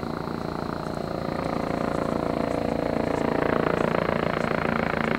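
Rega rescue helicopter on its landing approach: fast, steady rotor chop with engine noise, growing gradually louder as it comes in.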